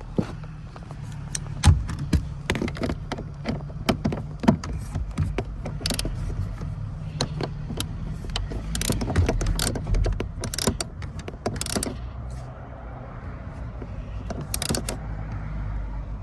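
Socket ratchet clicking in irregular runs as a seatbelt anchor bolt is tightened down, over a steady low hum.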